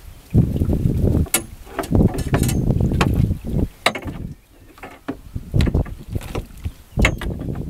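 Wind buffeting the microphone in gusts, with several sharp clicks and knocks as a monofilament double-funnel fyke net's hoops and mesh are handled over the side of a small open boat.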